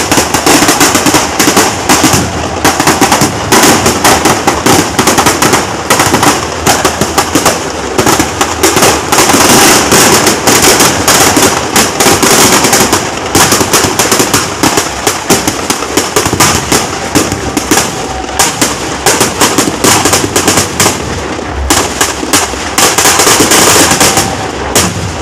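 Firecrackers packed in a burning Dussehra effigy going off in a loud, rapid, continuous barrage of bangs and crackles that dies down near the end.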